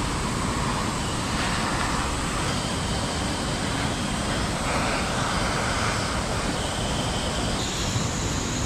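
Handheld butane gas torch burning with a steady hiss, its flame held against charcoal briquettes to light them.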